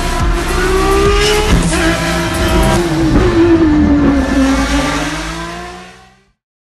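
Lamborghini Essenza SCV12's naturally aspirated V12 racing engine at speed, revving with its pitch climbing, dipping about three seconds in and climbing again. The sound then fades out near the end.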